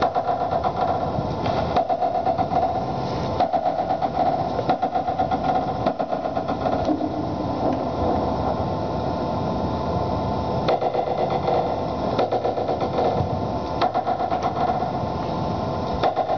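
Noise music built by mixing everyday sounds on a computer: a dense, steady rattling texture over a held hum, with no breaks.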